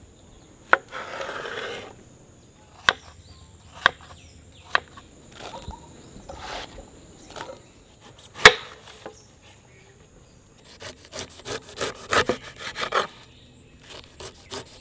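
Kitchen knife cutting on a wooden board: first slicing a cucumber, then cutting up a whole pineapple. A few separate sharp knocks come first, the loudest about eight seconds in, followed near the end by quick runs of crunchy cuts as the knife goes through the pineapple rind.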